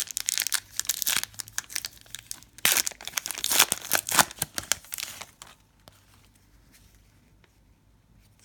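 A trading card pack's wrapper being torn open and crinkled, a dense crackling for about five seconds that then stops, leaving only faint handling.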